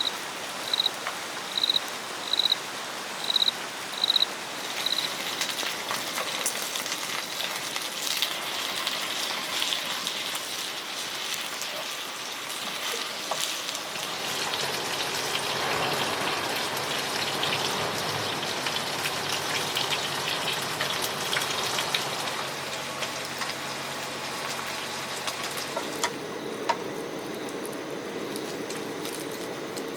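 Rain pattering steadily on a tent, an even hiss. About seven short high beeps, evenly spaced a little under a second apart, sound in the first five seconds.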